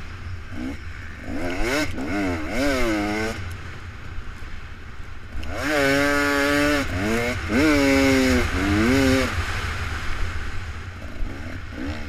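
Off-road racing engines revving up and down repeatedly, their pitch climbing and falling, loudest from about six to nine seconds in, over a steady low rumble.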